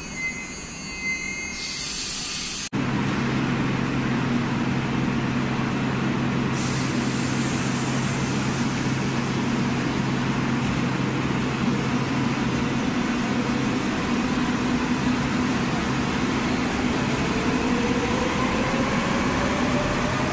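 Madrid Metro series 5500 train standing at an underground platform, its equipment giving a steady low electrical hum, with a short hiss of air about six seconds in. Near the end the traction motors start up with a whine rising in pitch as the train pulls away.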